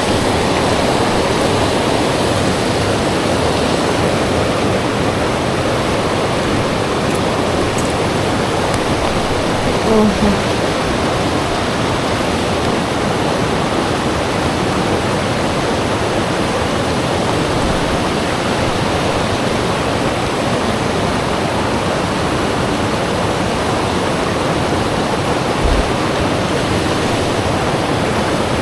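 Steady rush of flowing river water, with a short low thump near the end.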